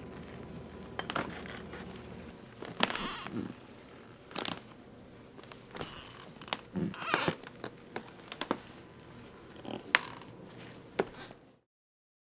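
Scattered clicks, light knocks and brief rustling noises at irregular intervals, then the sound cuts off abruptly near the end.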